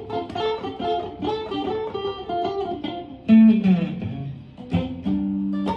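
Aria Pro II RS Wildcat electric guitar played with a clean amp tone: quick single-note picking, a loud note sliding down in pitch about three and a half seconds in, then a held two-note chord near the end.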